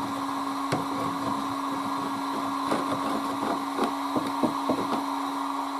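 Heat gun running steadily, its fan motor holding one pitch under a hiss of blown air, while old linseed putty is warmed to soften it; faint irregular clicks of the putty being scraped out come through over it.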